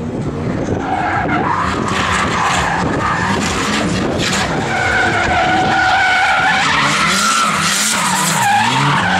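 Two drift cars sliding sideways in tandem, their tyres squealing in long wavering tones over engines held at high revs, getting a little louder as the cars come closer.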